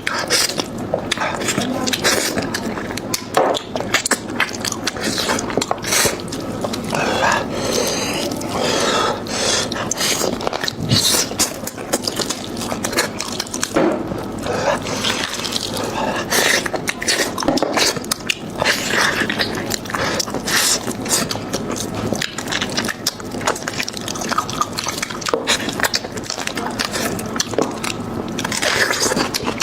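Close-miked eating of beef trotter: biting and chewing, with many quick wet clicks and smacks in an irregular run.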